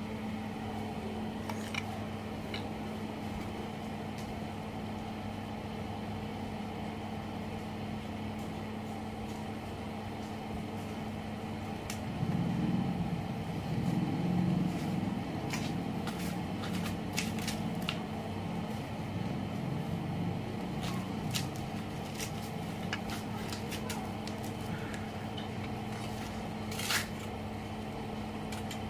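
Smarter TIG-180S DC inverter welder switched on and idling with no load, giving a steady hum. A louder low rumble comes for a few seconds midway, and a scatter of sharp clicks follows in the second half.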